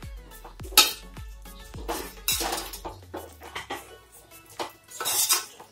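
Metal spoon scraping and clinking against a metal kadai while vermicelli and chicken are stirred, with a handful of sharp scrapes about a second apart. Soft background music plays under it.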